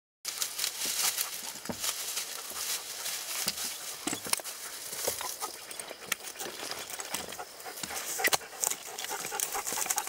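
Hiking boots and trekking poles stepping and clicking on rocky ground, with dry grass and brush rustling and scraping close by: an irregular run of small knocks over a steady hiss.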